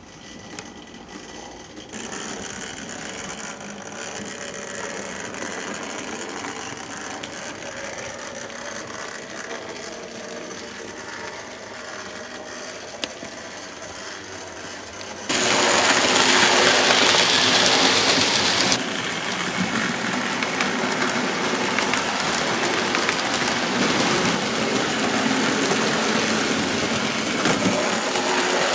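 OO gauge model trains running on the track, a steady mechanical running sound of small electric motors and wheels on rail. It becomes suddenly much louder about halfway through, then eases back a little a few seconds later and stays steady.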